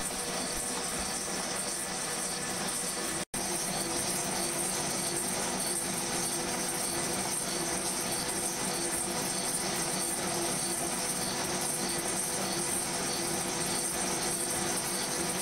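Milling machine running, an end mill cutting into a steel block with a steady machining noise. The sound cuts out for an instant about three seconds in.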